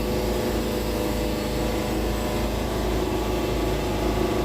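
Wood-Mizer portable band sawmill running steadily, its engine and blade working through a cut in a red cedar log.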